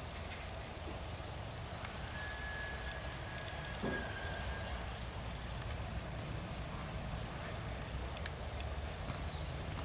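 Outdoor garden ambience: a steady low rumble and a thin, steady high whine. Short high chirps come three times, a faint held whistle runs for about three seconds, and a single soft knock falls just before the four-second mark.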